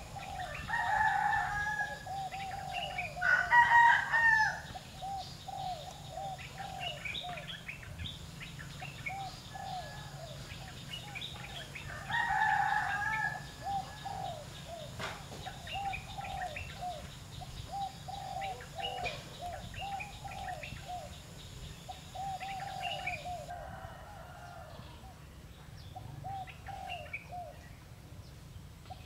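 Rooster crowing three times, the loudest just after the start and about four seconds in, over a steady run of short bird calls repeated several times a second.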